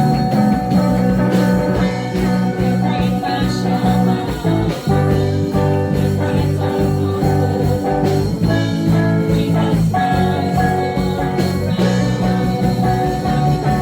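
Praise and worship music with guitar and a steady bass line, the chords changing every few seconds.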